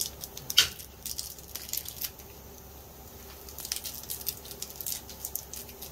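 Small clicks and plastic crinkling as the cap and seal of a small beard oil bottle are worked open by hand, with one sharper click about half a second in.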